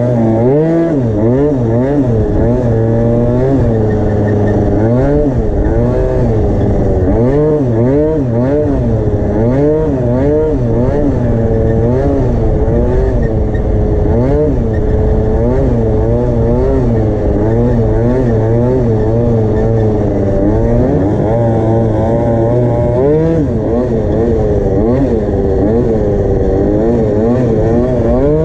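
Tuned MBK Booster scooter's two-stroke Minarelli engine revving up and dropping back again and again, its pitch rising and falling about once every second or two as the throttle is worked.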